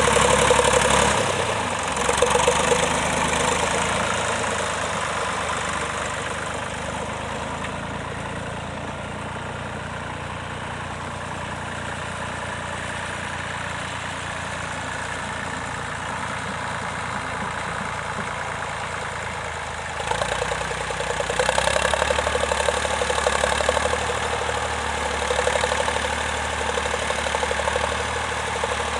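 Vintage tractor engine running steadily at a ploughing match, loud at first, fading over several seconds, then louder again from about twenty seconds in.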